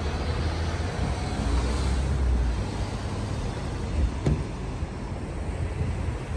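Street traffic: cars driving past close by, engine and tyre rumble swelling and fading, loudest near two seconds in. A short sharp knock about four seconds in.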